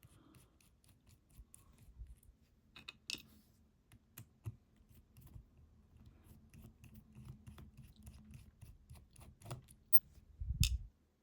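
Small metallic clicks and light scraping as lock parts and hand tools are handled while a lock is being taken apart, with a dull thump about ten and a half seconds in.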